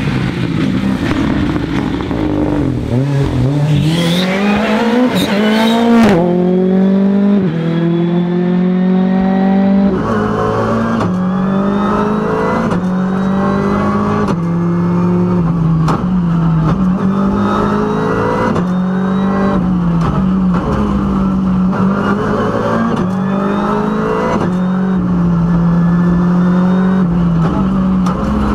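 Ford Fiesta R5 rally car's turbocharged 1.6-litre four-cylinder engine at full throttle. It first passes at speed with its note rising sharply, then is heard from inside the cabin revving hard through repeated gear changes.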